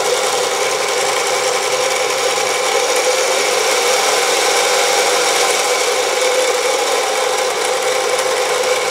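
Inland DB-100 diamond band saw running steadily with no load on a bench test, its motor and blade spinning freely without water or any cutting.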